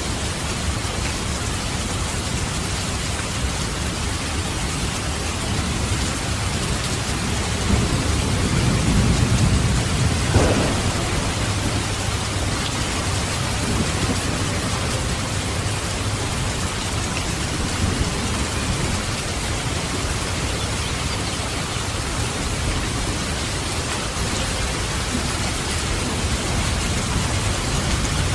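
Steady rain falling, with a rumble of thunder that swells about a third of the way through and peaks in one sharp crack before fading back under the rain.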